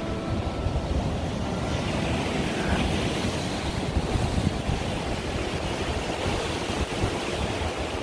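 Rough sea surging and breaking around rocks, with wind rumbling on the microphone. The hiss of the surf swells about two seconds in.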